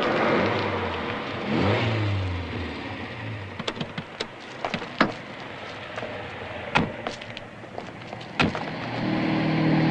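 A car drives up and stops with a lorry going by, then several sharp clicks and knocks of car doors and handles. A steady low engine hum comes in near the end.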